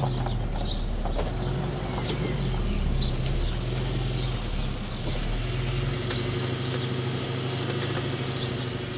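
Background music with a held bass line that steps between notes and light, regular high percussion.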